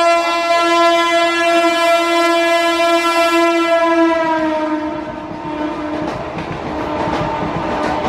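Horn of a 3-phase MEMU electric train held in one long blast at high speed, its pitch dropping as the train passes about five seconds in. The horn then gives way to the rumble and clickety-clack of the wheels on the track.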